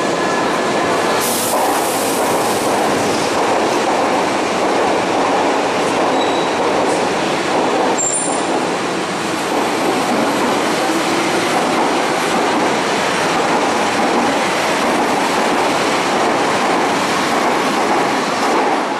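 Berlin U-Bahn train pulling out of an underground station and running out along the platform: a loud, steady noise of wheels and motors, with a couple of brief high wheel squeals near the middle.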